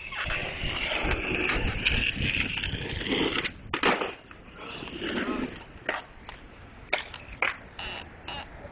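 Skateboard wheels rolling on pavement, then a loud clack of the board hitting the ground just before four seconds in, followed by several lighter knocks and clatters of the board.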